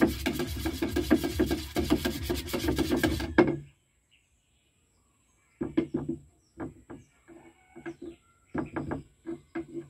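A stick stirring flat wall enamel paint in a metal can, giving fast, rhythmic scraping that stops suddenly about three and a half seconds in. After a short silence, a paintbrush makes short rasping strokes in quick groups.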